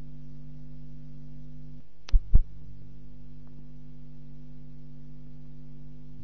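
Steady low electrical hum, with two loud thumps a fraction of a second apart about two seconds in.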